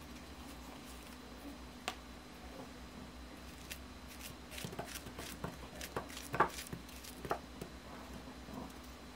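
Kitchen knife slicing a banana into a bowl: light clicks and taps, one about two seconds in and most in a run from about four to seven and a half seconds in, over a faint steady hum.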